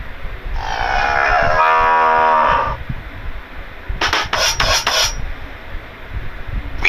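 A cow mooing sound effect: one long call lasting about two seconds, then about a second later a quick run of four or five rasping strokes.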